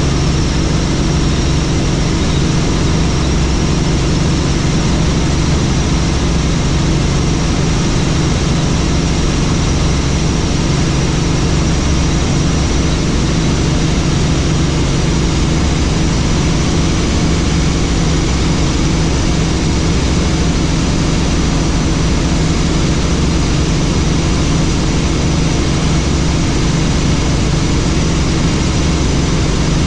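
Helicopter in flight: the steady, unchanging drone of its engine and rotor.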